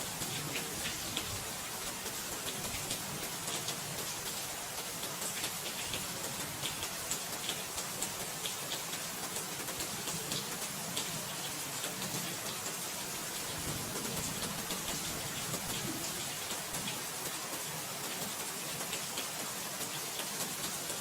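Steady rain falling, a dense even hiss with many small drop ticks on a surface.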